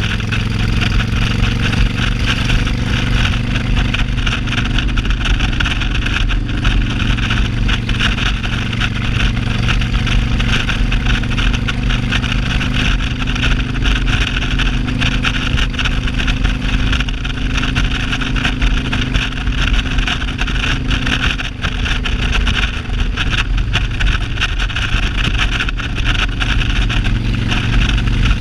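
Cruiser motorcycle engine running steadily at highway cruising speed, under a constant rush of wind noise.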